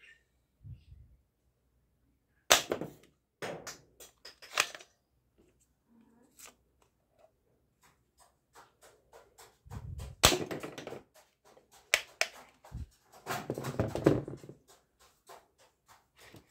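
Plastic toy gun being handled and worked: a series of sharp plastic clicks and snaps, the loudest a few seconds in, then a run of quicker clicks with two rattling stretches near the middle and toward the end.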